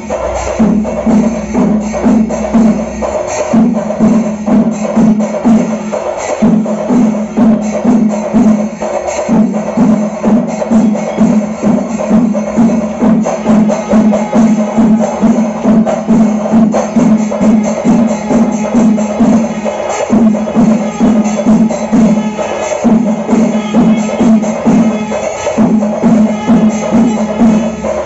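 Traditional Kerala temple festival percussion ensemble playing: dense, rapid drum and cymbal strokes over a held wind-instrument tone that breaks off briefly every few seconds.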